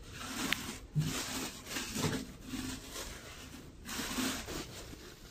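Plastic sheet and tissue-paper packing wrap rustling and crinkling unevenly as it is handled and pulled open by hand.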